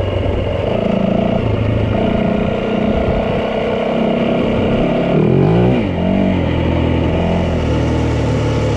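Yamaha 450 dirt bike's single-cylinder engine running under way. About halfway through the revs drop and climb again as the throttle is eased and reopened.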